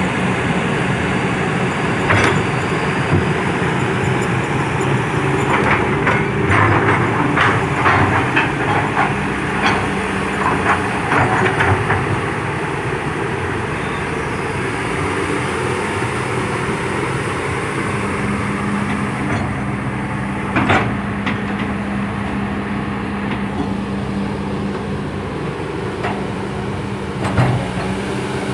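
Heavy excavator diesel engine running steadily under load, with sharp metallic clanks: a cluster of them early on, then single ones near the middle and near the end.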